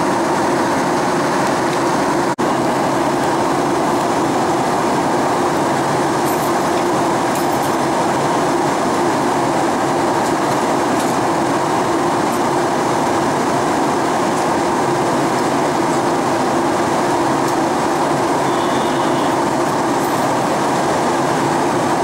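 Steady cabin noise of a Boeing 737-800 airliner in flight, the hum of its CFM56-7B engines and the rush of air, heard from a passenger seat, with a brief dropout about two seconds in.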